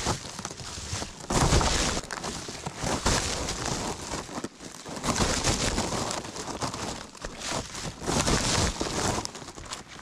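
Thin white plastic bag rustling and crinkling, handled close to the microphone while rubbish is gathered into it, in uneven crackly spells.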